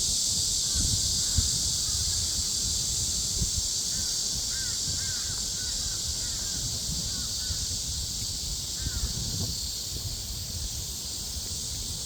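Cicadas singing in a steady, high-pitched chorus that drones without a break. A bird gives short, repeated chirping calls about four to six seconds in, over a low rumble of wind on the microphone.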